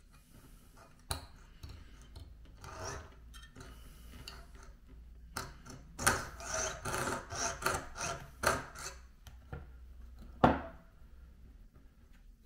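A jeweler's saw with a fine blade cutting a groove through the base of a small HOn3 model railroad rail held in a wooden guide: short, uneven rasping strokes, busiest in the middle. A single sharp knock comes near the end.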